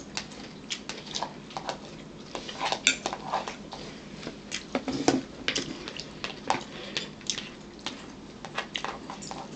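A metal spoon clicking and scraping against a plastic bowl as food is scooped out, in irregular small clicks.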